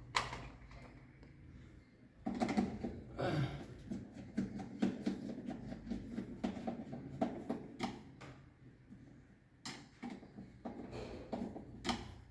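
Circuit breakers and parts of a consumer unit being handled and adjusted: sharp plastic and metal clicks, with a stretch of busy rattling and scraping about two seconds in, then a few more clicks near the end.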